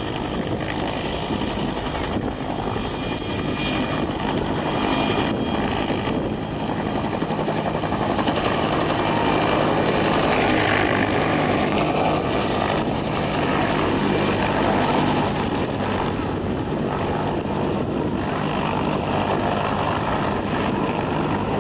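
Westland Whirlwind rescue helicopter hovering and manoeuvring low, its rotor and engine running steadily. It grows a little louder in the middle, then eases back.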